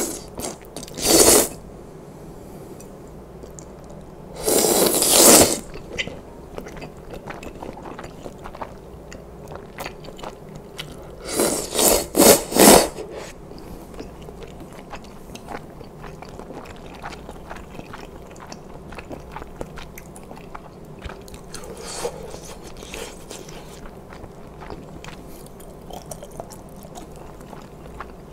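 Close-up eating of spicy knife-cut noodle soup: loud slurps of noodles, a short one about a second in, a longer one about five seconds in and a broken run of several around twelve seconds in, then chewing with small wet mouth clicks.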